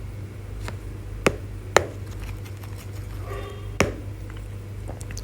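A few sharp taps or clicks, the two loudest a little over a second in, over a low steady hum.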